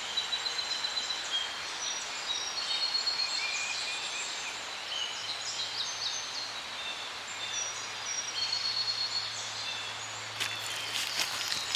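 Birds chirping and calling outdoors: many short, overlapping chirps and whistles. A run of sharp clicks or rustles starts near the end.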